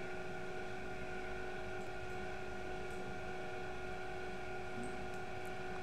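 Steady background hum with a few faint constant tones over a light hiss, the electrical and room noise of the recording setup.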